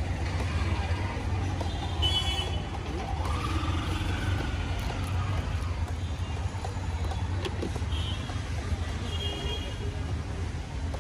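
Steady road-traffic rumble from a busy street, with a few short high-pitched tones about two seconds in and twice near the end.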